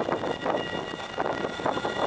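RET electric tram rolling past close by on street rails: a steady hiss and rumble of wheels on track that swells and dips, with a few faint high steady tones over it.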